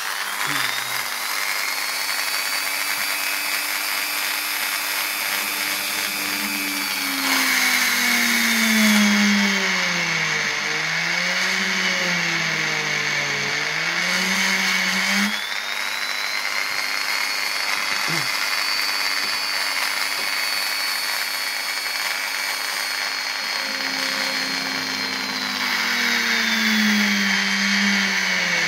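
Old Dremel rotary tool with a 1.6 mm bit drilling pilot holes through wooden straight-razor scale blanks. The motor runs with a steady whine that drops and wavers in pitch as the bit bites in, twice: for several seconds in the middle and again near the end.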